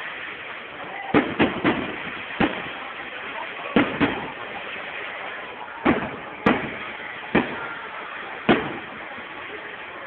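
Fireworks bursting: about nine sharp bangs at irregular intervals, a quick triple about a second in, with a steady background hiss between them.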